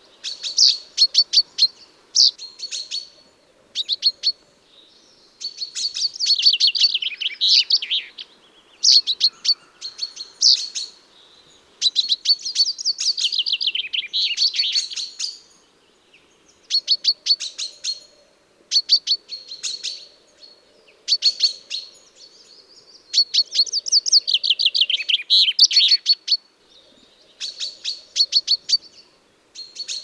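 Common chaffinch (Fringilla coelebs) singing: repeated phrases of rapid, sharply falling notes, several running into a longer descending flourish at the end, separated by short pauses.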